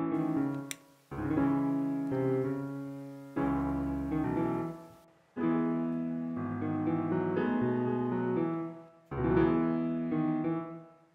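Solo piano background music: slow phrases of chords that each start firmly and fade away, a new phrase every two to four seconds.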